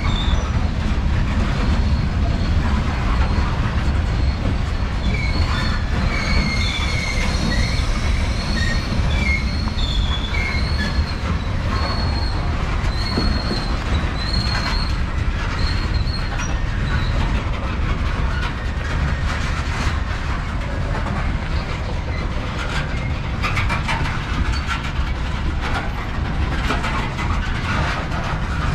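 Covered hopper cars of a freight train rolling past: a steady low rumble of steel wheels on rail. Intermittent high-pitched wheel squeal runs through the first half, and clicks of wheels over rail joints follow in the second half.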